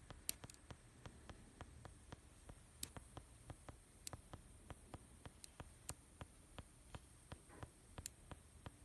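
Near silence, with faint, fast, even clicking at about three or four clicks a second and a few louder clicks among them.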